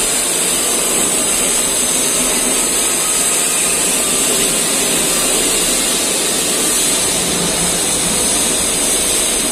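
Electric power tool working the jade stone, running steadily with a high-pitched whine.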